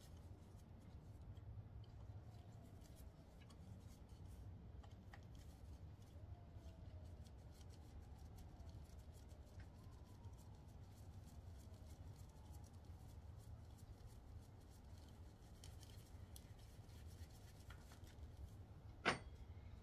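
Near silence with a faint low hum, broken by faint small ticks of gloved hands and an Allen key working the valve-cover bolts on a motorcycle engine, and one sharp metallic click near the end.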